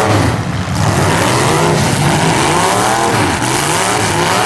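Demolition derby car engines revving up and down, several at once, loud and continuous.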